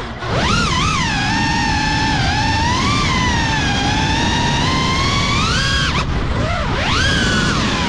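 FPV quadcopter's brushless motors and propellers whining, the pitch sliding up and down with the throttle, with a rush of wind and prop wash underneath. The whine drops sharply and then climbs back right at the start and again about 6 seconds in, as the throttle is cut and reapplied through dives and flips.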